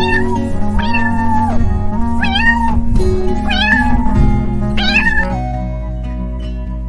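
A cat meowing repeatedly in short high calls that bend in pitch, over background music with plucked strings; the meows stop about five seconds in.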